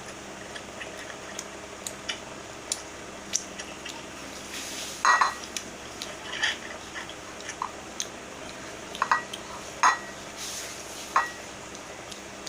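Close-up eating sounds of wet chewing and mouth clicks, with a few short sharp clinks of dishes about five, nine, ten and eleven seconds in, over a steady low hum.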